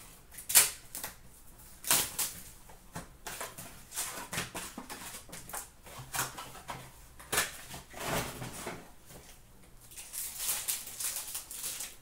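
Trading cards being handled and sorted by hand: irregular clicks, slaps and rustles of card stock, with a sharp snap about half a second in.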